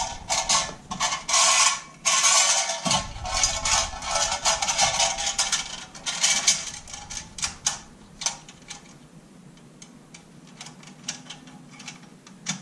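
Parts of a shotgun box magazine clicking, scraping and rattling as they are handled and worked into the magazine body: dense clicking for the first several seconds, then scattered single clicks.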